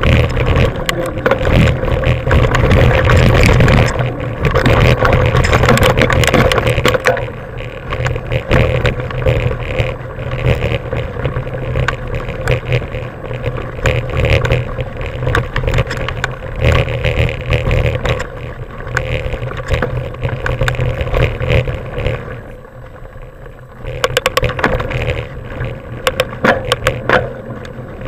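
Mountain bike ridden fast down a dirt and gravel forest trail, heard from a camera riding along: wind rumbling on the microphone, tyres crunching over the ground, and the bike and mount rattling and knocking over rough spots. Loudest in the first several seconds, with a short quieter stretch some six seconds before the end.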